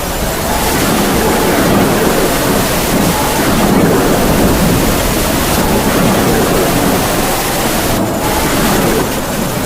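Heavy rain falling in a dense, steady rush, with howling wind over it. The wind rises in a gust about half a second in and eases near the end, its faint wavering howl sounding above the rain.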